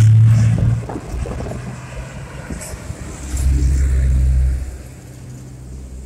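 Yellow minibus driving past close by and pulling away down the road. Its engine is loud at first and fades within about a second. A low rumble swells again briefly past the middle, then dies down.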